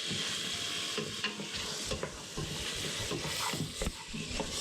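Stir-fry of pork and vegetables sizzling steadily in a hot pan while being stirred, with a utensil scraping and knocking against the pan now and then.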